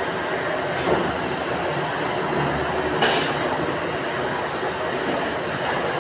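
Steady machinery noise, with two sharp clacks about one and three seconds in.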